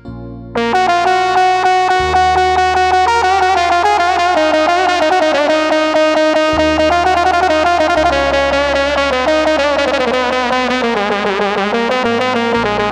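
Korg Pa arranger keyboard playing a fast Levantine sha3bi melody in an Arabic sample-pack voice over held bass notes, starting about half a second in.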